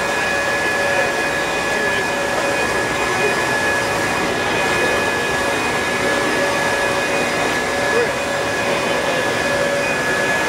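A blower-type machine runs steadily without a break: a rush of air with a constant high whine, used in drying the rain-soaked track.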